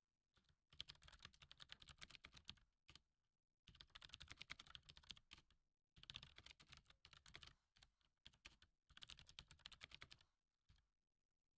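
Faint computer keyboard typing, in four short runs of keystrokes with brief pauses between them.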